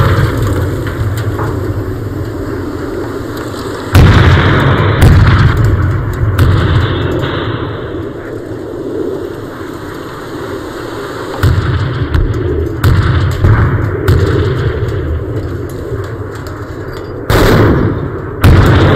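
A string of explosions, about six loud blasts a second or more apart, each sudden crack trailing off into a low rumble, as a pipeline laid across open ground is blown apart.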